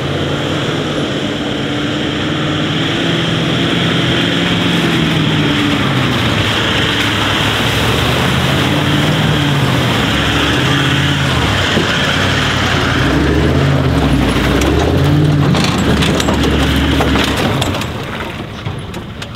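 Toyota LandCruiser engine working under load while towing a camper trailer up a muddy, rutted track, its revs rising and falling again and again. It fades near the end as the vehicle moves past and away.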